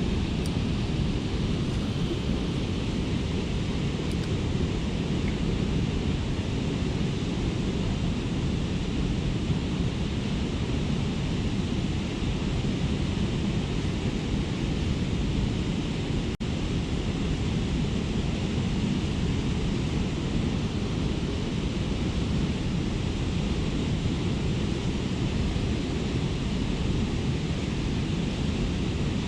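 Steady rushing noise of a fast-flowing river current, mixed with wind buffeting the microphone.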